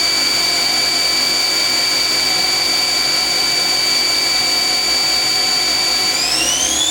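The 7,500 RPM spindle of a Fadal VMC 2016L CNC vertical machining center runs steadily at 3,000 RPM with a high whine. About six seconds in, the whine rises in pitch as the spindle speeds up to the next step.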